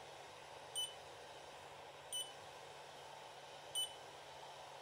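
FLSun Super Racer 3D printer's touchscreen giving three short, high beeps about a second and a half apart, as its buttons are pressed to select the test file and start the print.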